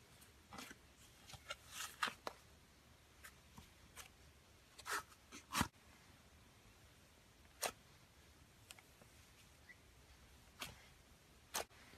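Thick fluffy slime being kneaded and poked by hand, giving scattered soft pops and crackles as air pockets burst. About a dozen short snaps come irregularly, clustered in the first couple of seconds, with the loudest a little before the middle.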